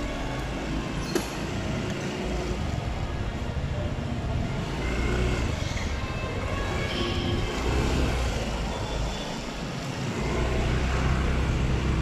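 Vehicle engines running with a steady low rumble, echoing in an underground parking garage, with a single sharp click about a second in.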